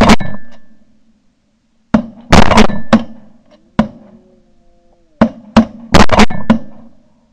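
Volley of shotgun blasts from several waterfowl hunters shooting at geese overhead. There are about ten sharp shots in quick bunches: one at the start, a cluster about two seconds in, and a fast run of five near the end.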